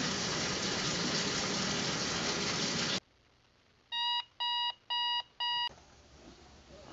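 Steady hiss of running water that cuts off abruptly about three seconds in. After a brief silence, a Coby digital alarm clock beeps four times, about two beeps a second, each a short pitched tone.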